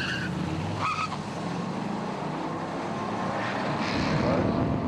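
Muscle cars' V8 engines accelerating hard down a drag strip, with a brief tire squeal about a second in.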